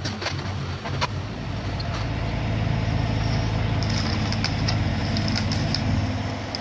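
Mini excavator engine running steadily and growing louder after about two seconds, with scattered sharp clicks and snaps in the second half as the bucket and thumb work into the shrubs.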